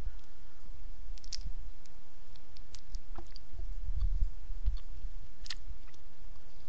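Biting into and chewing a freezer-cold Reese's Fast Break chocolate peanut-butter candy bar: scattered small mouth clicks with low thuds of chewing.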